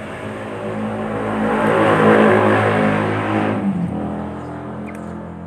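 A motor vehicle passing by. It swells to its loudest about two seconds in, then fades, its engine note dropping slightly as it goes away.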